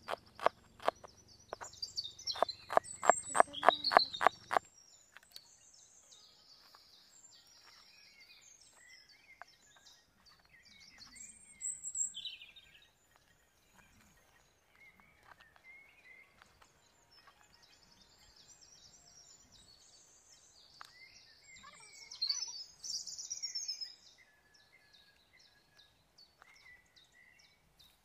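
Knife chopping red onion on a wooden cutting board, about three quick chops a second, stopping suddenly after about four and a half seconds. After that, birds chirping and calling, with a few louder bursts of song.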